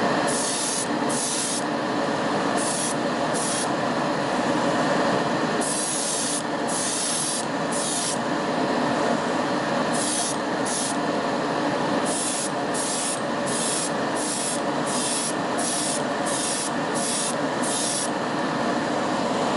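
Spray paint hissing in short bursts, about twenty of them, each lasting a fraction of a second, as a toy car body is given a coat of green. A steady whir runs underneath.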